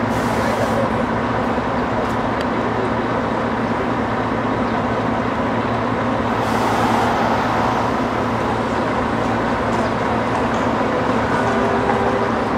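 Street traffic noise with a steady low engine hum.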